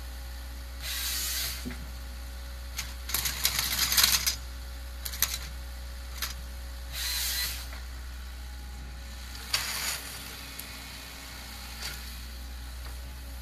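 A forestry machine running with a steady low drone, broken by short bursts of hissing and clattering every few seconds, the loudest with a run of sharp clicks a few seconds in.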